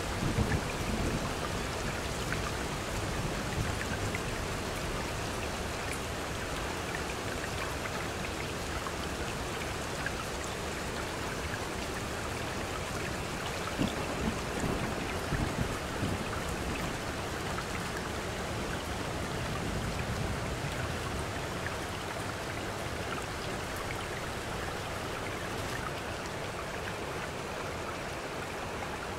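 Steady rain with a few low rumbles of distant thunder, about a second in and again around halfway through.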